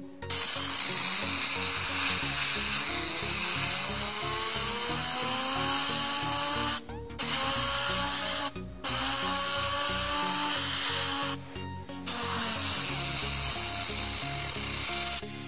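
Compressed air hissing from a blow-gun nozzle onto a fidget spinner, cutting off briefly three times, while the spinner's whine rises in pitch as the air drives it faster.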